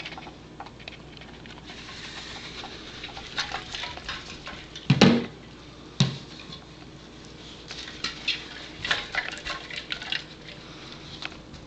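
Hard plastic Buster Cube treat dispenser being nosed and tumbled across carpet by a dog, the small treats inside rattling and clicking in irregular bursts, with one heavier knock about five seconds in and a sharp click just after.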